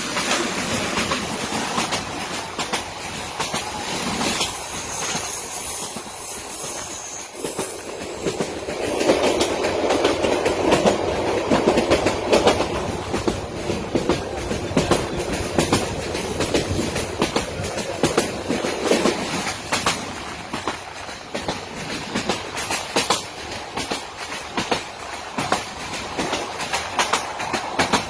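Chitra Express passenger train rolling past, its wheels clicking steadily over rail joints. A high wheel squeal comes in about five seconds in, and the rumble of the cars grows louder from about nine seconds in.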